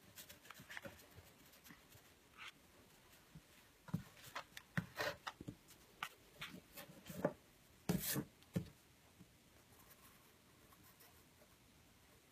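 Pencil drawing on paper at a wooden desk: soft scratchy strokes and light taps and knocks of the pencil and hands against the paper and desktop, bunched together in the middle.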